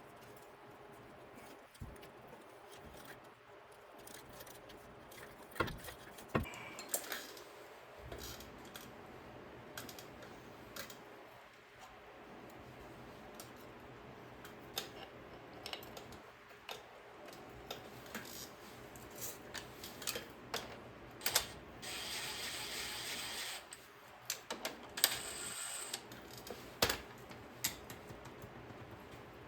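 Scattered metallic clicks, clinks and knocks of tools and axle parts being handled during hub and bearing assembly. About two-thirds of the way through there is a short rushing hiss lasting about a second and a half.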